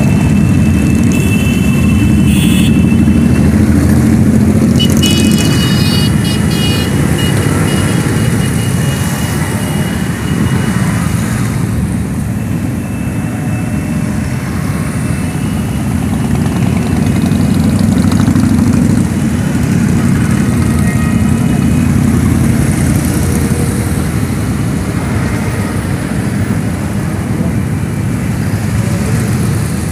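Parade of many cruiser and touring motorcycles riding slowly past in a column: a steady, loud low engine rumble from many bikes at once. Two brief high-pitched tones sound over it in the first several seconds.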